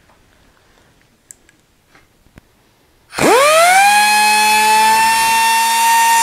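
Quiet handling clicks, then about three seconds in a Porter-Cable pneumatic cutoff tool starts up: its whine climbs quickly in pitch and settles into a loud, steady high-pitched whine as the cutoff wheel begins cutting through a rusty steel exhaust pipe.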